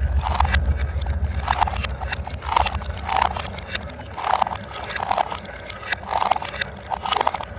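Marbles rolling down a wooden marble-run track, with a low rolling rumble and repeated rattling clacks about every half second to a second as they drop and turn along the run.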